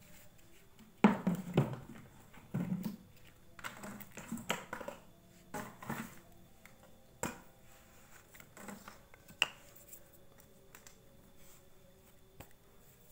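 Hard plastic parts knocking and clattering as they are handled and set down on a tiled floor: a white plastic lid fitted with a PVC pipe and a PVC tube housing. The loudest knocks come a second or two in, then scattered lighter clicks.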